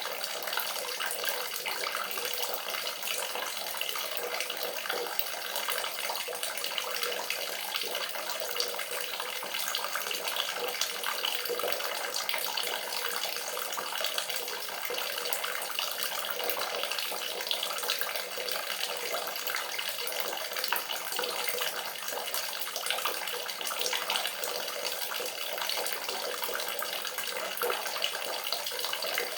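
Running water splashing in a steady, unbroken stream, with a bright, fizzy texture and little low rumble.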